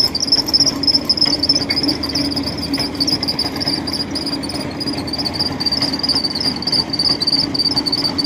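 Kubota tracked crawler carrier's engine running steadily under load as the machine crawls off a barge and up a riverbank, with a steady high-pitched whine over the engine.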